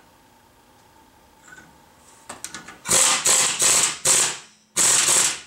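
Pneumatic impact wrench hammering in short bursts, snugging the nut on the ball-joint pinch bolt at a VW Golf's front steering knuckle. A few light clicks come first, then two rapid runs of hammering start about halfway through.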